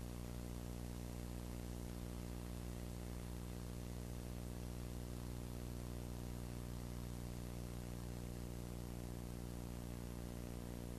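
Steady electrical mains hum and buzz with many overtones, under an even hiss; it does not change.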